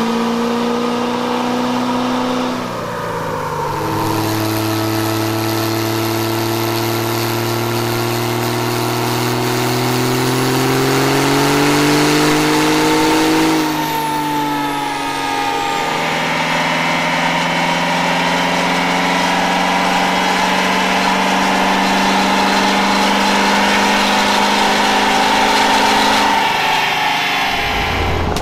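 Pickup truck engines running under load on a chassis dynamometer. The engine note holds, drops, then climbs slowly for about nine seconds as the truck pulls against the rollers. It falls away about thirteen seconds in, then settles into a long steady run.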